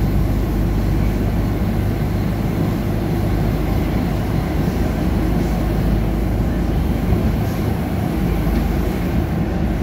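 Stockholm metro C14 car in motion, heard from inside the car: a steady low rumble of wheels on rail and running gear.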